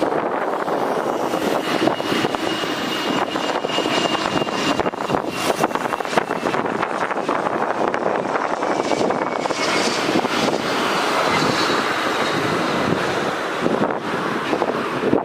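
Jet aircraft passing close by, a steady engine rush with a thin whine that slides slowly down in pitch. Wind buffets the microphone.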